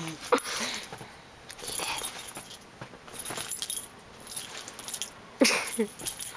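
A small dog thrashing and rubbing against bed covers: its metal collar tags jingle in several short bursts over the rustling of the sheets.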